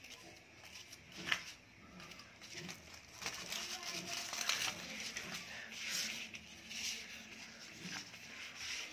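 Paper rustling and crinkling as a folded letter is worked out of a stiff paper envelope by hand, with a sharp tap about a second in.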